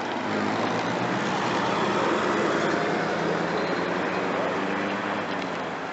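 Classic cars driving past one after another: a Rover P5 saloon's engine and tyre noise, loudest about two seconds in as it passes close, then easing as a 1970s Ford Falcon sedan approaches.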